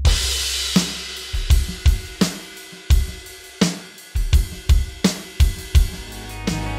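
Drum kit playing a groove through DW Soundworks' "Maple Mahogany Natural" preset, sampled from a DW Maple Mahogany kit. A crash cymbal rings at the start, then bass drum, snare and hi-hat keep a steady beat.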